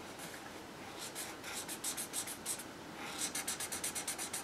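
Copic alcohol marker's chisel tip scratching over sketchbook paper in rapid back-and-forth shading strokes, several a second. The strokes begin about a second in, pause briefly, then come faster near the end.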